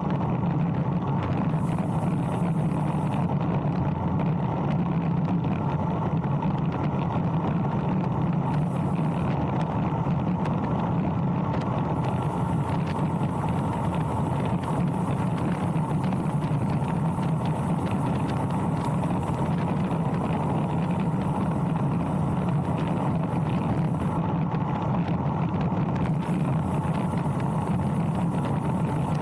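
Steady rush of wind over the microphone mixed with the hum of road-bike tyres on asphalt during a fast downhill run, constant throughout with no breaks.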